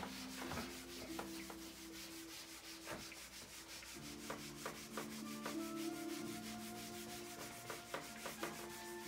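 Marker drawings being wiped off a whiteboard: a rapid, even run of short rubbing strokes across the board's smooth surface.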